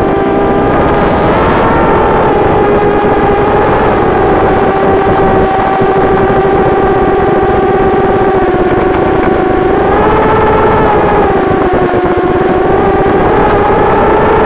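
Moby X4 FPV racing quadcopter's brushless motors and propellers whining, heard from the onboard RunCam 2 camera. The pitch shifts with throttle, rising about ten seconds in, dipping, and climbing again near the end.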